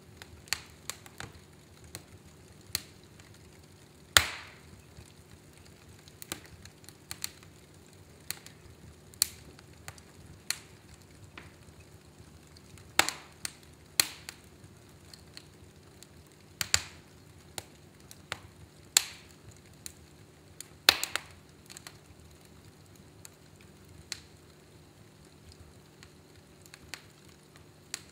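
Wood fire in a fireplace crackling: irregular small snaps with several louder sharp pops, the loudest about four seconds in and others around 13, 17, 19 and 21 seconds in. A faint steady low hum runs underneath.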